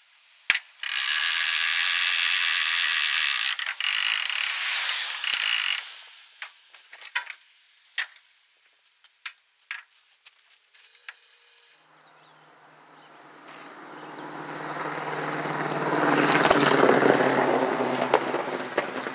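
A ratchet tie-down strap being worked: a long rasping pull of the strap for several seconds, then scattered clicks and knocks. Near the end a low rumble builds up and eases off again, which fits the loaded engine hoist being pushed along the wooden trailer deck.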